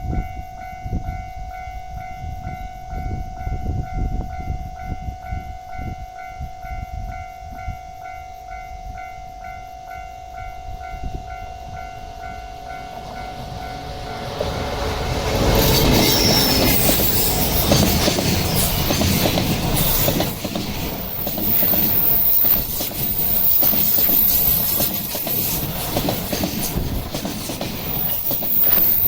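Japanese railway level-crossing warning bell ringing in a quick repeating electronic ding. About halfway through, a train runs through the crossing, its loud rumble and wheel clatter on the rails drowning out the bell.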